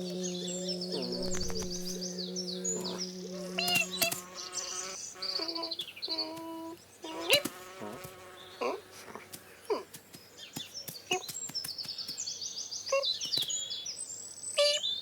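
Animated-cartoon sound effects: a buzzing insect with a wavering hum in the first few seconds, quick high bird-like twittering trills near the start and again near the end, and short squeaks, pitch glides and clicks in between.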